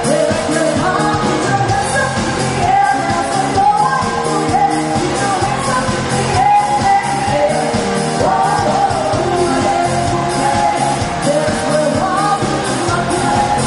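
A rock band playing a song with a lead singer, the drums keeping a steady beat under the sung melody.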